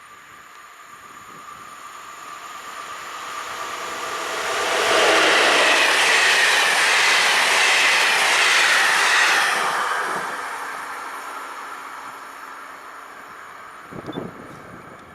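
A train passing by: it grows steadily louder, runs at its loudest for about four seconds with wheel and rail noise and a faint whine, then fades away. A short knock comes near the end.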